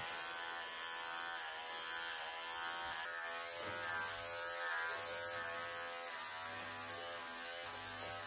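Wahl electric pet clippers running with a steady buzzing hum as they cut through a long-haired cat's pelted, matted coat. The pitch dips slightly now and then as the blade works through the fur.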